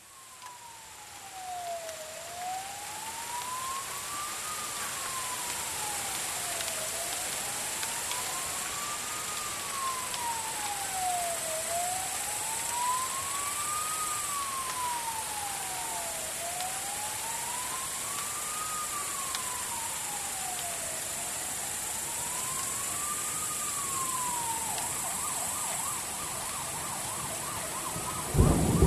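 Emergency vehicle siren in a slow wail, its pitch rising and falling about every four and a half seconds, switching to a fast yelp a few seconds before the end, over a steady hiss. A sudden loud noise comes in right at the end.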